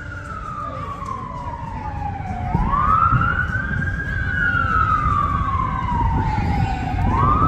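Emergency vehicle siren in a slow wail. It falls in pitch for the first two and a half seconds, rises to a peak about four seconds in, falls again, and starts rising once more near the end, over a steady low rumble.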